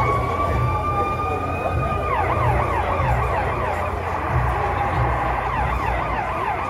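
Emergency vehicle siren: a held wail that switches about two seconds in to a rapid yelp, about four to five up-and-down sweeps a second.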